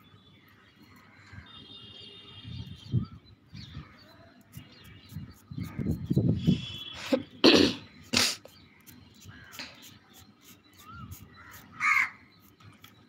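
Birds calling: two loud harsh calls close together past the middle and a third near the end, with faint high chirps in the first few seconds.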